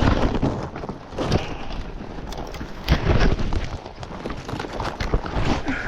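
A horse's hooves knocking on rough trail ground at an uneven pace, with low rumbling noise on the microphone.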